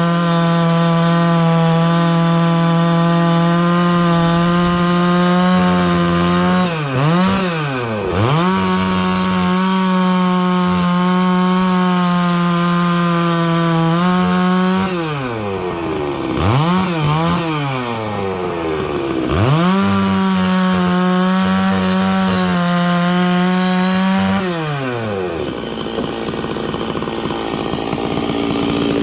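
Stihl 660 two-stroke chainsaw with a 36-inch bar running at full throttle, ripping lengthwise through dry larch. Its revs drop sharply and climb back a few times, then fall away near the end.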